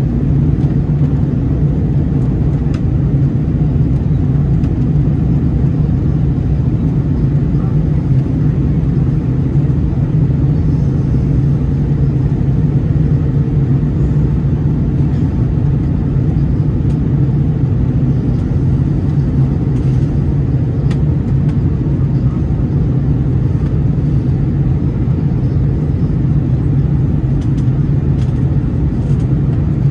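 Steady low rumble of cabin noise inside an Airbus A321-200 airliner in flight, from its CFM56 engines and the airflow over the fuselage.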